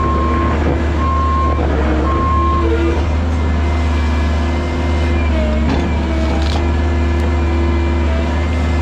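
Excavator diesel engine running steadily under load, with a backup alarm beeping about once a second for the first few seconds.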